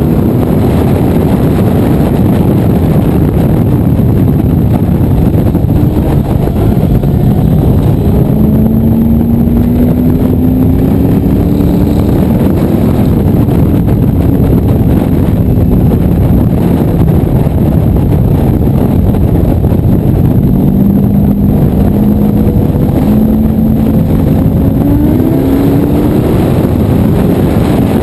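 Boss Hoss 502 motorcycle's 8.2-litre Chevrolet big-block V8 running loud at road speed, its note rising as it pulls harder near the start and again near the end, otherwise holding fairly steady.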